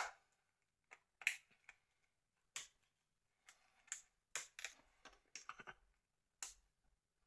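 Faint, sharp plastic clicks and taps from a Nokia 2720a flip phone's casing being worked apart by hand: about a dozen separate clicks, several bunched together between four and six seconds in.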